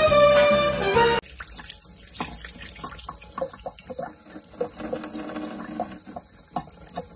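Swing music cuts off about a second in, giving way to a thin stream from a kitchen faucet running into a sink. A cat laps at the stream, making irregular small splashes and licking sounds.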